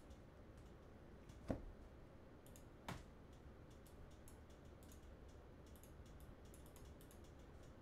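Near silence: room tone with two soft clicks, about a second and a half and three seconds in, then a scatter of faint light ticks.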